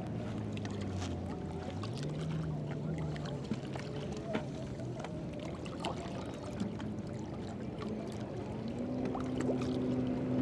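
A motor running with a low steady hum whose pitch rises about two seconds in and again near the end, with scattered light clicks over it.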